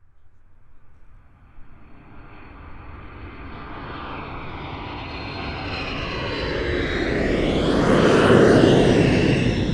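Airplane flying overhead: its engine noise swells steadily from faint to loud, peaks about eight seconds in, then begins to fade as it passes.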